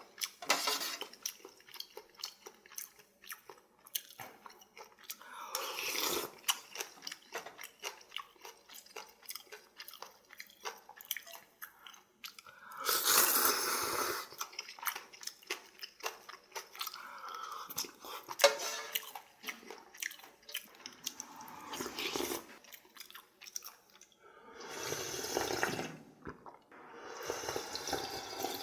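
Close-up eating sounds from a bowl of spicy ramyun noodles: wet chewing with many quick mouth clicks and smacks. Several louder stretches, each about a second or two long, break in along the way.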